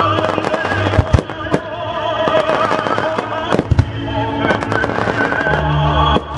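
Fireworks bursting overhead, with several sharp bangs at irregular intervals, over loud music with sustained melodic notes.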